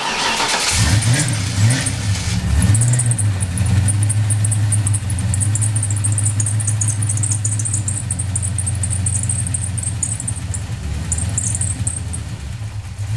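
Ford Mustang 302 V8 starting with a short burst of cranking, catching and revving briefly, then idling steadily, with a faint high chatter over the idle. It is running again on a replacement coil wire, after the old wire had fried and left the car dead.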